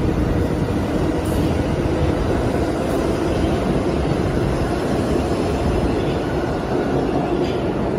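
New York City subway train running through the station on the rails, a steady, loud rumble of steel wheels on track with a faint hum underneath.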